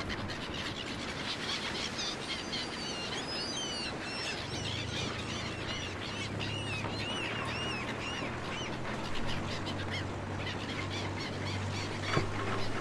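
Harbourside soundscape: a flurry of bird calls over a steady noisy wash, joined about four and a half seconds in by a low steady hum, with a single knock near the end.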